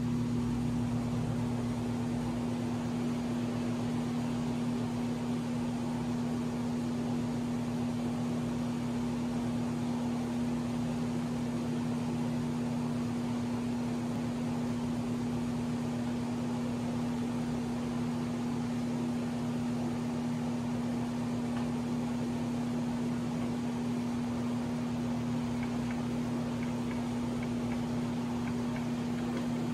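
Steady electrical mains hum, a constant low buzz with its strongest pitch near 240 Hz, over an even hiss like room ventilation. It does not change as the model locomotives draw closer.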